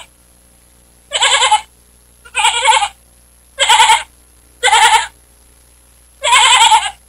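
A lamb bleating five times, about a second apart. Each bleat is a short, quavering call of about half a second.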